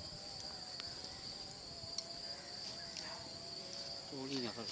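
Steady, high-pitched insect chorus, with a man's voice briefly near the end.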